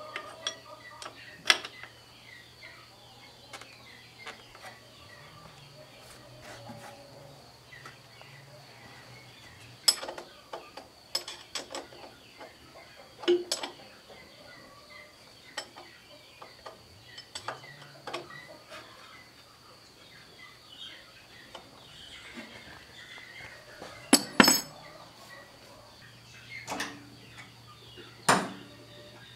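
Scattered metallic clinks and knocks of hands and tools at work on a tractor engine's fuel filters, over a faint steady hum. The strongest knocks come near the end.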